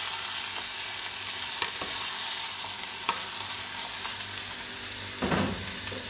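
Chopped tomatoes sizzling in a hot pot as they cook down, a steady hiss, with light knocks of a wooden spatula stirring them against the pot and a louder bump about five seconds in.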